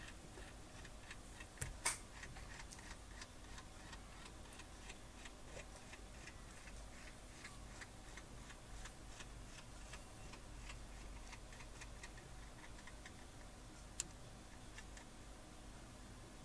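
Faint, even clicking from a hand tool tightening a nut onto 12 mm threaded rod through a timber fence post, with a sharper click about two seconds in and another near the end.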